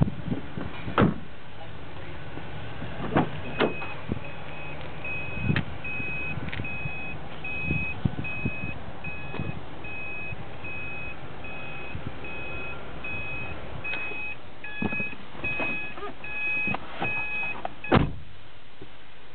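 A 2009 Subaru Impreza's interior warning chime beeping repeatedly at one high pitch, a little more than once a second, with a second, lower beep joining near the end. Scattered knocks and thumps come from the door and interior trim being handled, the loudest a sharp thump near the end.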